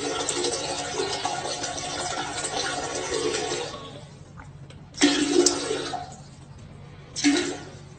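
Rushing water: a long gush that fades out about four seconds in, then two shorter gushes that start suddenly near five and seven seconds.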